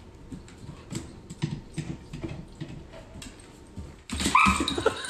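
A dog's nails tick faintly on a hardwood floor. About four seconds in, the dog gives a loud whining cry whose pitch bends and wavers.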